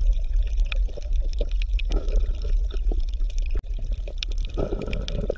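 Water sloshing and splashing, full of small irregular clicks, over a steady low rumble. It breaks off briefly about three and a half seconds in, then carries on with a slightly different texture.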